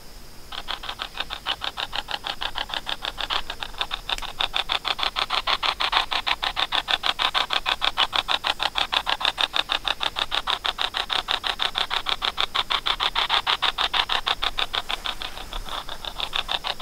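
Spirit box app on a phone's speaker sweeping, giving a steady chopping static of rapid, even pulses, several a second, that starts about half a second in.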